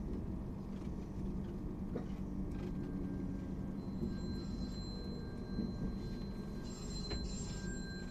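Suburban electric train running, heard from inside the carriage, with a steady low rumble as it slows into a station. About two and a half seconds in, thin high squeals of the brakes set in and hold steady, fading near the end.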